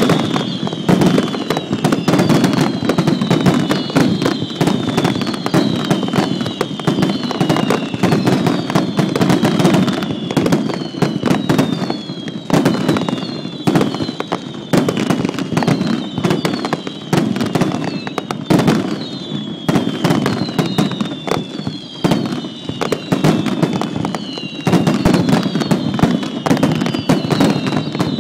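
Set-piece fireworks firing continuously: dense crackling and popping, over which high whistles fall in pitch, one after another, about once a second.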